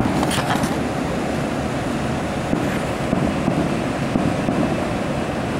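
Wind buffeting the camcorder's microphone: a steady low rush of noise with no distinct events.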